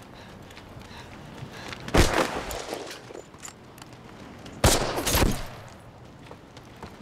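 Rifle shots: a single shot about two seconds in, then two more close together about two and a half seconds later, each followed by a long echoing tail.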